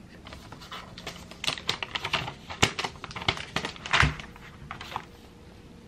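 A run of light, irregular clicks and taps of fingers and nails on a MacBook Air M2's aluminium case as the laptop is handled, the loudest about four seconds in.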